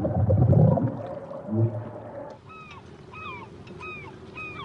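Gray whale sounds underwater: a low, rumbling moan, then a short low grunt about a second and a half in. After about halfway, a bird calls over and over with short, bending chirps about twice a second, over a faint steady hum.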